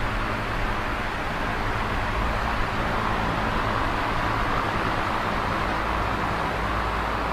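Large box fan running steadily: an even rushing of air, strongest in the middle range, over a low hum from the motor.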